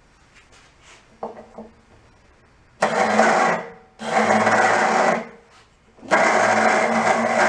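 Electric starter motor on a Toro Personal Pace mower engine whirring in three bursts, beginning about three, four and six seconds in, the last held longest. The starter spins but does not turn the engine over.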